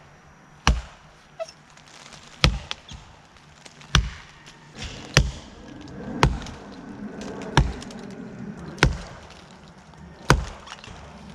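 Axe chopping into a standing tree trunk: eight heavy, sharp strikes of the blade into the wood, spaced roughly a second and a half apart.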